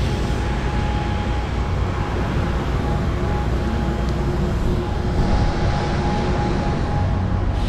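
Steady low rumble of outdoor street noise, with a faint steady hum running through it.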